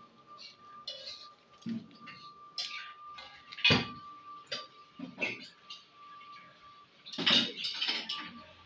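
Kitchen clatter from fried-rice cooking: a knife knocking on a wooden chopping board and utensils clinking on pans, scattered and irregular. One loud knock comes a little before halfway, and a short run of clattering comes near the end. A faint steady high tone sounds underneath.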